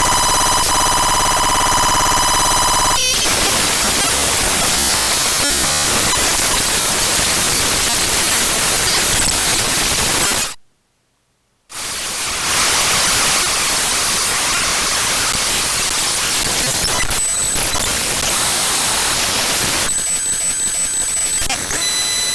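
A computer file's raw data played back as sound by the Binary Waterfall web player: loud harsh static with buzzy steady tones for the first three seconds or so, then dense hiss. It cuts out to silence for about a second midway, then the static resumes, with a few faint steady tones near the end.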